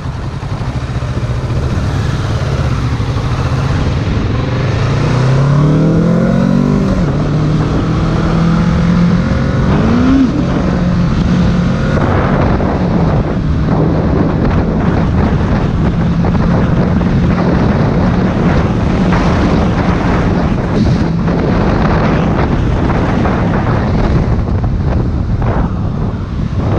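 Motorcycle engine accelerating: its pitch climbs and falls back twice, then holds steady at cruising speed. Heavy wind buffets the microphone throughout.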